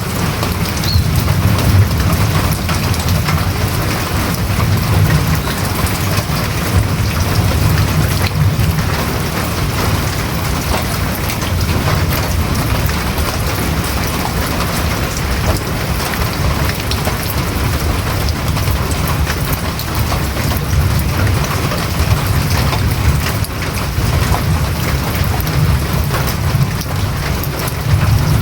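Rain falling steadily on a house roof: a dense patter of drops over a steady low rumble.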